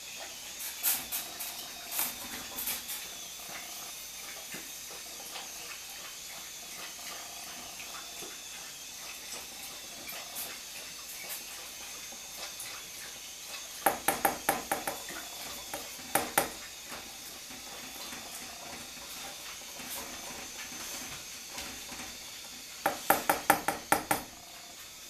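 Wire whisk clattering against the side of a metal saucepan in short bursts of rapid ticks as cornmeal is whisked into boiling water, the loudest bursts in the middle and near the end. Under it is a steady hiss from the gas stove and the hot water.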